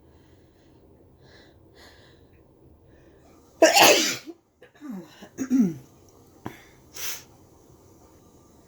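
A person sneezing, a deliberately induced sneeze at the end of a cold: a few faint breaths, then one loud sneeze about three and a half seconds in, followed by two short falling vocal sounds and a quick sharp breath about three seconds later.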